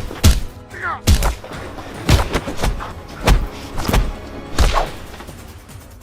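A series of about six heavy thudding impacts, each with a deep low thump, spaced roughly a second apart over five seconds, then dying away.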